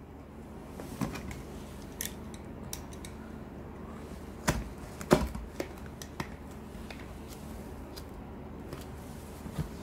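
Utility knife blade scraping and slicing through packing tape on a cardboard box, with scattered sharp clicks and knocks, the loudest about five seconds in, over a steady low hum.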